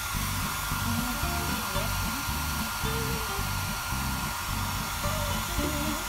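Handheld hair dryer blowing steadily, a constant airy hiss with a faint steady whine, over background music with a beat.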